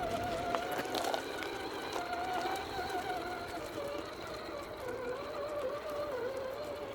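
Electric motor and gear drive of an RC scale crawler whining steadily under throttle, the pitch wavering and dipping slightly as the throttle changes, with a few light clicks.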